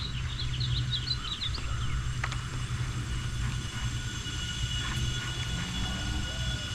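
A steady low rumble with a few faint high tones, with a bird chirping quickly during the first second or two and a couple of faint clicks.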